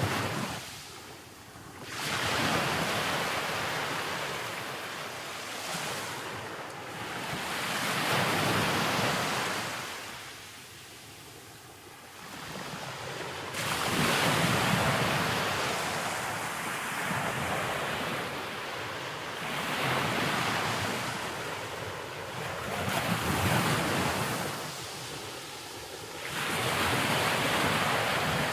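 Open-air rush of wind and ocean surf, swelling and fading every few seconds, with wind buffeting the microphone.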